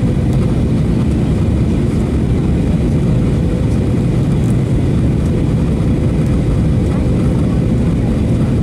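Cabin noise inside a Boeing 737-800 on approach: the steady low rumble of its CFM56-7B engines and the airflow over the fuselage, with a faint steady hum over it.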